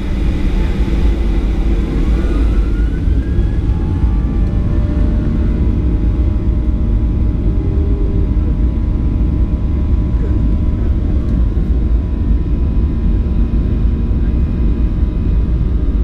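Cabin noise of a Boeing 737-800 on the runway: the steady rumble of its CFM56 engines, with a faint rising whine about three seconds in.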